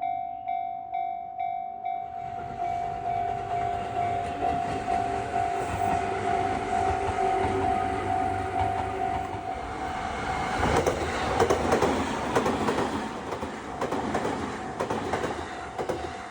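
Railway level-crossing warning bell ringing on one steady tone at about two dings a second while a train passes. The train's wheels clatter over the rail joints, loudest in the second half.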